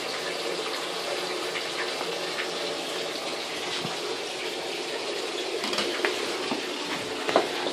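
Steady noise of running water, with a few light knocks about six and seven seconds in.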